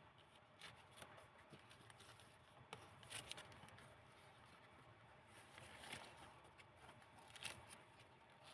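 Faint rustling and soft ticking of old book-paper pages being handled and turned in a handmade junk journal, a few separate rustles, the clearest about three, six and seven and a half seconds in.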